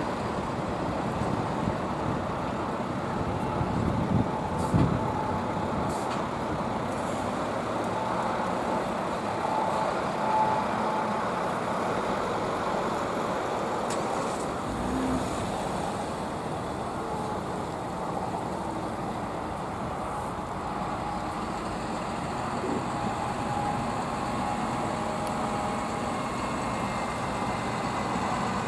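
Diesel engines of a column of heavy MAN trucks, some towing trailers, running as they drive past one after another, with a few short knocks and clunks about four to six seconds in and again around fourteen seconds.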